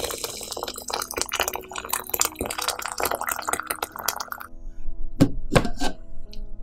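A stream of water pouring and splashing into a steel pot of poppy seeds, filling it, then stopping about four and a half seconds in. A few short knocks follow near the end, over faint background music.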